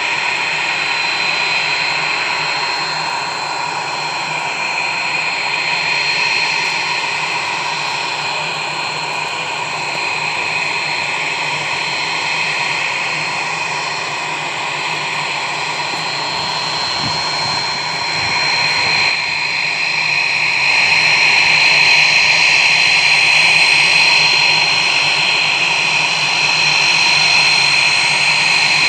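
USAF T-1A Jayhawk's twin Pratt & Whitney JT15D turbofans running at taxi power: a steady high whine over a jet rush, growing louder about two-thirds of the way through as the jet taxies closer.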